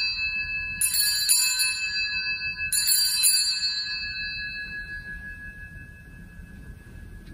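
Altar bells rung at the elevation of the chalice during the consecration. There are two shakes, about a second in and near three seconds, each a cluster of bright strikes. Their tones ring on and fade away over the next few seconds.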